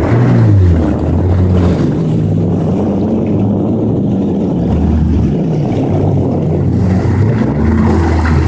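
Yamaha jet ski engine running at speed, its pitch rising and falling repeatedly as the throttle and load change, over the rush of water.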